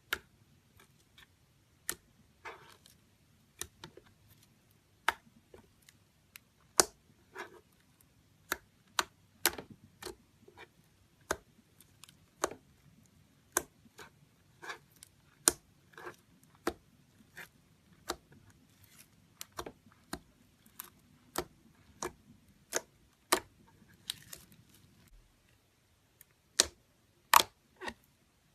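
Slime being kneaded and squeezed by hand, giving a run of sharp, irregular clicks and pops from trapped air, about one to two a second, with a few softer crackles among them.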